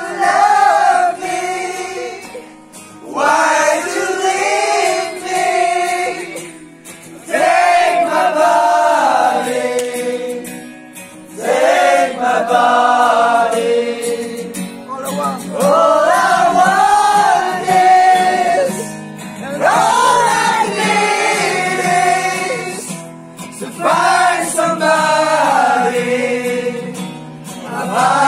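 A group of young men singing a song together in chorus, in sung phrases of a few seconds with short breaks between.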